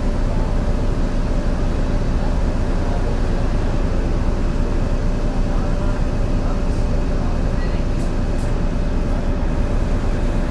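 Inside a MAN NL202 CNG bus on the move: the gas engine and ZF automatic gearbox run steadily under a heavy low rumble, with a constant whine running through it. The engine has a bad misfire.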